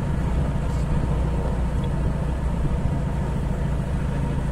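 Toyota Lite Ace minivan driving: a steady low engine and road drone.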